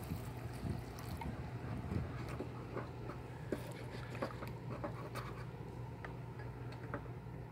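Pan of steak and gravy simmering, with faint irregular pops and bubbles over a steady low hum.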